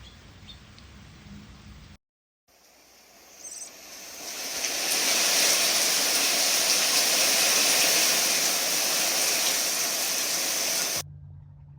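Heavy rain falling in a downpour: a steady, loud hiss. It swells over about two seconds after a brief cut of silence and then cuts off abruptly near the end.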